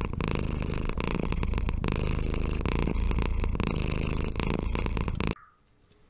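Sound of an animated logo intro: a loud, dense rumble with a low steady drone and rapid irregular clicks, cutting off suddenly about five seconds in.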